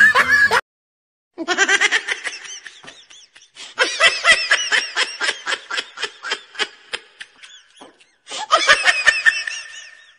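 High-pitched giggling laughter in three runs of quick repeated pulses, starting after a short gap about a second in and pausing twice.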